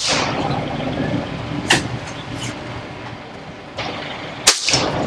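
Air rifle pellets striking a steel spinner target: two sharp metallic hits, about a second and a half in and near the end, the second followed by a brief rattle as the spinner paddles swing.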